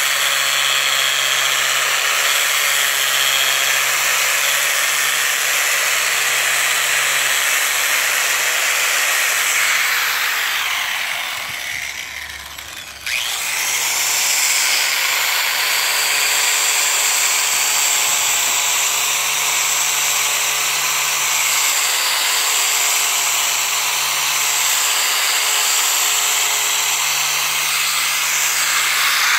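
Angle grinder fitted with a foam-backed sanding disc, running steadily as it sands jackfruit (langka) wood, with a steady motor whine over the rasp of the disc. About ten seconds in, it winds down for a few seconds, then starts up again abruptly and runs on.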